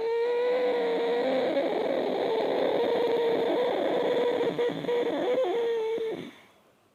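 Ujjayi pranayama inhalation: a woman draws one long breath in through a deliberately contracted throat, giving a steady rasping hiss with a held tone in it. It lasts about six seconds and fades out near the end.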